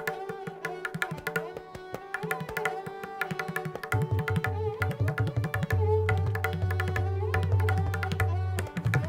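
Indian classical music: fast tabla strokes over a sustained melodic line from a sarangi. The bayan's deep ringing bass tone is held from about four seconds in until near the end.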